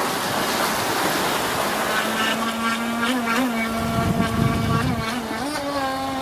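Radio-controlled electric boat's 540 brushed motor whining at a steady pitch over water and wind noise. The whine is faint at first, comes in clearly about two seconds in, and wavers in pitch a few times, with a low rumble near the middle.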